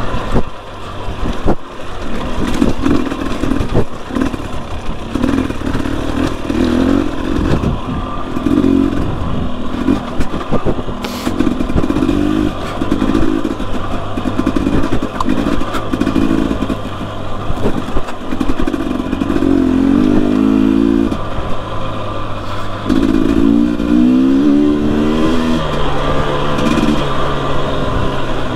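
Two-stroke Husqvarna TE250i dirt bike engine revving in repeated short surges as the throttle is blipped on and off, climbing in pitch twice in longer pulls about two-thirds of the way through, with scattered knocks and clatter.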